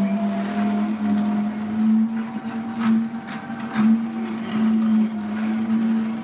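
Vertical slow juicer running with a steady motor hum, crushing carrots as they are fed into the chute. Two sharp cracks come about three and four seconds in.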